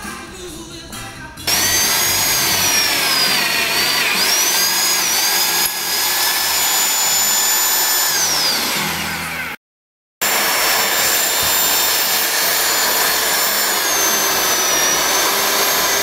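Magnetic-base drill running as it bores through steel: a loud, steady motor noise with a high whine whose pitch dips and wavers under load. It cuts off abruptly near the middle and starts again after a brief silence. Soft music plays for the first second and a half.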